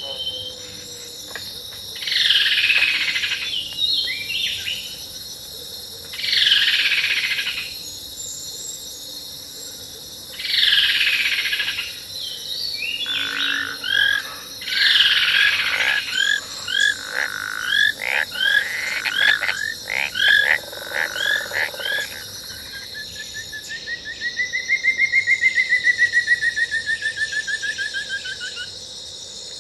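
Recorded jungle sound-effect loop of insects and strange animal calls. A steady high insect drone runs underneath several harsh, drawn-out calls, then a run of quick chirps, then a long pulsing trill that rises and falls in pitch near the end.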